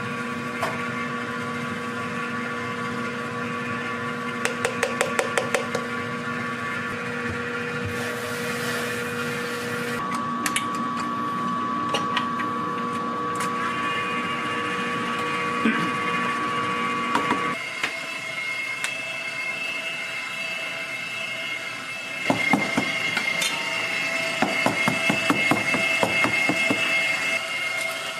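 Kitchen work sounds over a steady machine hum that shifts in pitch twice: a quick run of clicks about five seconds in, a short rush of noise a little later, and a stretch of clicking and handling clatter in the last six seconds.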